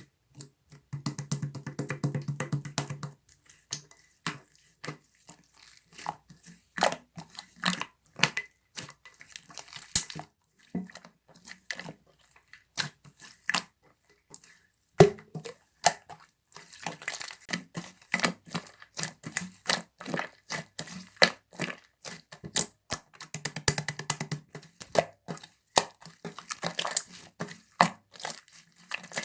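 Slime being squeezed and poked by hand: irregular crackling clicks and small pops, with a low buzzing squelch about a second in and again near the end as air is pressed out of it.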